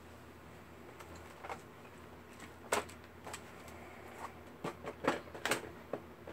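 Large cardboard toy-blaster box being handled and flipped over on a hard stone floor: scattered taps and knocks, thicker and louder in the second half.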